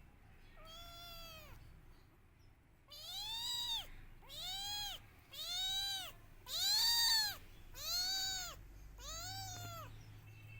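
Kitten meowing repeatedly, crying for its mother. A faint meow comes near the start, then six high meows about a second apart, each rising and falling in pitch, the loudest near the middle.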